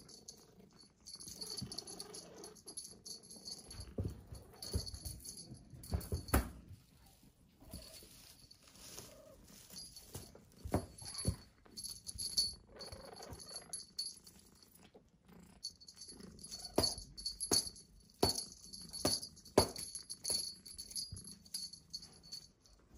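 A kitten playing on a cloth-covered surface: irregular soft knocks and rustling at uneven intervals.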